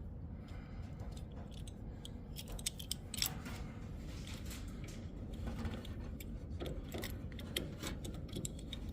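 Scattered light metallic clicks and clinks of hand tools being handled: Allen keys being tried on a steering column fastener, which turn out to be the wrong size.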